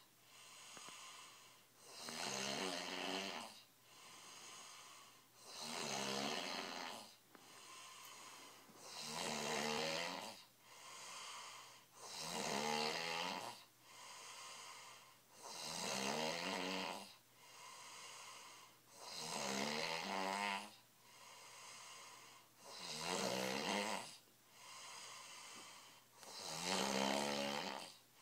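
A man snoring heavily in a slow, even rhythm: a loud snore about every three and a half seconds, with a softer breath between each.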